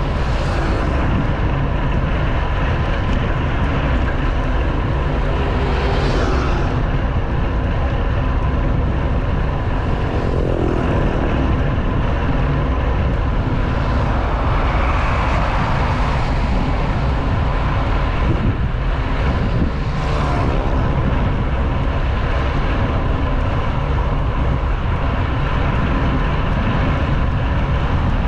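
Wind rushing over a handlebar-mounted action camera on a moving road bike, a loud steady rush, with several motor vehicles passing by, each rising and falling in pitch.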